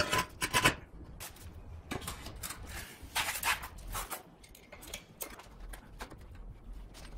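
Sharp clicks and knocks of a drilled steel angle being handled and set down on a concrete floor, with a scraping stretch partway through as it is slid along the base of a wall.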